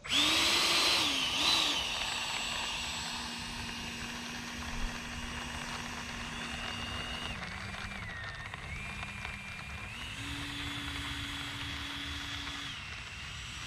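E-Flite F-16 Thunderbirds model jet's 70 mm electric ducted fan spooling up suddenly to a steady whine. It keeps running as the jet taxis away along the runway, its pitch stepping down and up several times with the throttle and growing fainter with distance.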